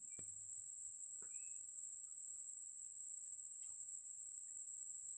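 Insects singing in one steady, high-pitched drone, with a few faint clicks and a short chirp about a second in.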